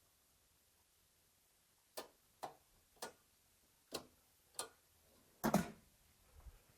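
A series of short, sharp clicks or knocks, about six, spaced unevenly half a second to a second apart, ending in a louder double knock, with near silence between them.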